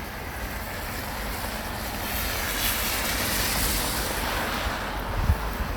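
A vehicle passing, its tyre hiss swelling to a peak about halfway through and fading, over a steady low wind rumble on the microphone. A brief low thump near the end.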